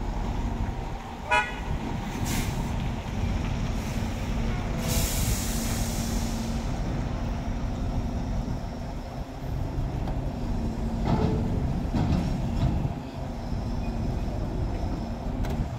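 Heavy truck's diesel engine idling with a steady low rumble. There is a short toot about a second in, and a hiss of about a second and a half around five seconds in.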